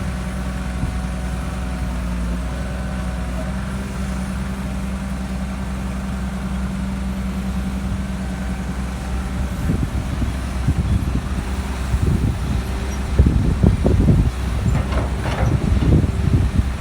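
Heavy diesel engine running steadily. From about ten seconds in, it is joined by irregular low thumps and rumbles.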